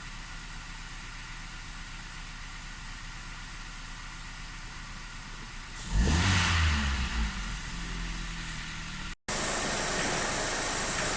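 2010 Kia Ceed 1.4 MPI four-cylinder petrol engine running steadily, then revving sharply about six seconds in and falling back. After a short break near the end it carries on as a steadier, hissier engine sound.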